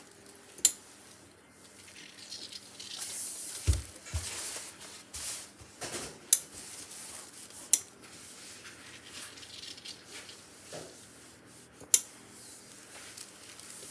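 Steam iron pressing seams on cloth, with hands smoothing the fabric. Sharp clicks come a few seconds apart, a brief hiss comes around three seconds in, and a low thump follows about four seconds in.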